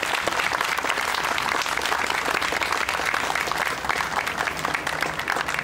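Crowd applauding, many hands clapping at once in a dense patter that eases slightly near the end.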